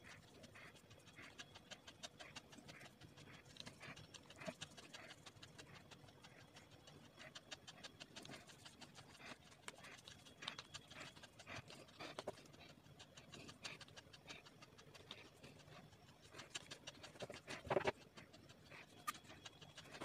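Faint, repeated brushing of a paintbrush laying black gouache over a wax-crayon-coated sheet of paper, stroke after stroke, with one louder knock near the end.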